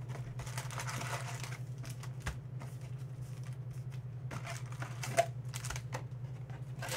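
Trading card packs being lifted out of a cardboard hobby box and stacked on a table: scattered clicks, taps and crinkles of the pack wrappers, with a rustle about a second in. A steady low hum runs underneath.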